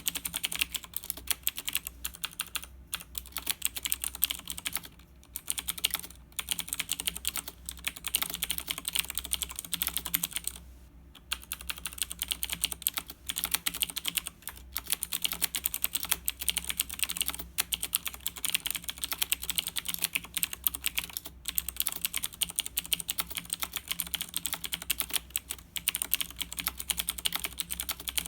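Fast, continuous typing on a Razer BlackWidow 2013 mechanical keyboard: a dense run of key clicks, many a second, broken by a few short pauses, the longest about ten seconds in.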